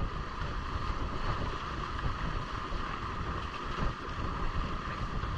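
Steady wind noise on the microphone over water rushing past the hulls of a Hobie Cat catamaran under sail.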